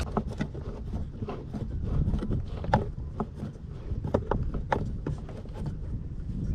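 Irregular small clicks and light taps of hand-tool work on the air intake while the new mass air flow sensor is screwed into place, over a steady low rumble.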